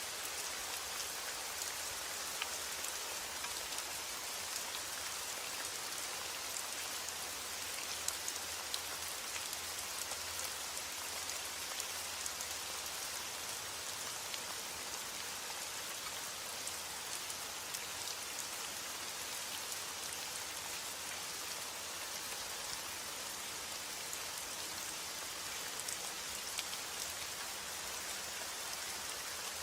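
Heavy rain falling steadily: a dense, even hiss scattered with sharper ticks of individual drops.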